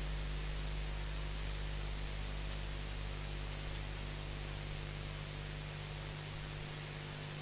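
Steady hiss with a low electrical hum underneath; no other sound stands out.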